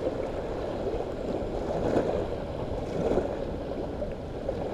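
Water lapping against the hull of a small fishing boat, with wind rumble on the microphone; no engine running.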